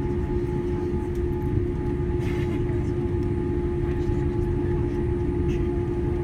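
Boeing 787-8 airliner after landing: a steady low rumble with a constant hum, and a few faint clicks.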